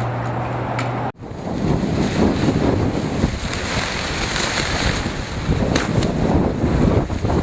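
Strong gusty wind blowing across the microphone, a loud uneven rush. About a second in, a steady low hum cuts off abruptly and the wind takes over.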